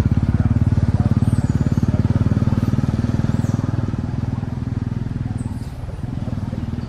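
A small engine running steadily, its fast even firing pulses easing slightly in loudness over the last few seconds.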